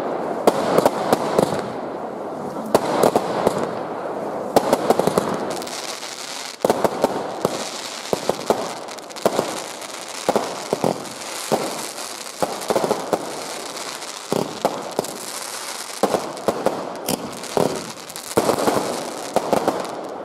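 Fireworks going off in a dense series of sharp bangs and pops, with crackling between them.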